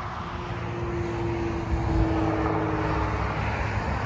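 Interstate highway traffic passing below: a steady rush of tyre and engine noise, with a steady hum standing out over it for a couple of seconds.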